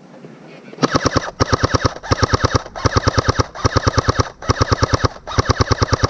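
Airsoft gun firing full-auto, a string of short rapid bursts of evenly spaced shots starting about a second in.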